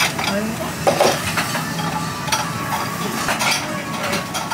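Cutlery clinking against a bowl of ramen during eating: a few light, scattered clinks over steady background noise.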